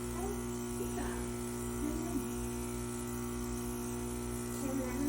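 A steady electrical hum or buzz with a few fixed low tones. Faint wavering tones drift over it, with a brief louder wavering sound near the end.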